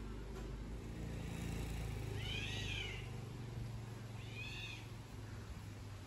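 A cat meowing twice, each meow rising and then falling in pitch, the second shorter than the first, over a low steady rumble.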